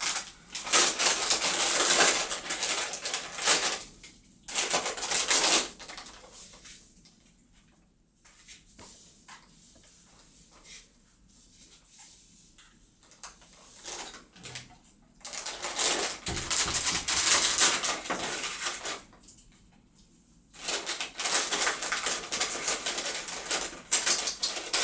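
A crinkly plastic bag rustling and crackling in several bursts of a few seconds each, with quiet gaps between them.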